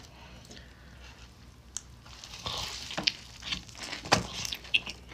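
Biting into and chewing an extra-crispy fried chicken tender sandwich with coleslaw on toast: crunching and crackling bites with scattered sharp crunches, starting about two seconds in after a quiet moment.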